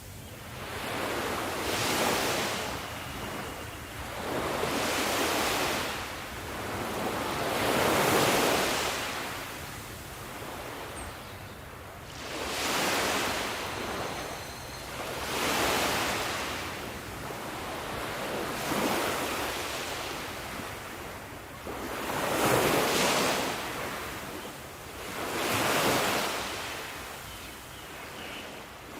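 Ocean waves breaking, the surf swelling and fading in repeated surges every few seconds.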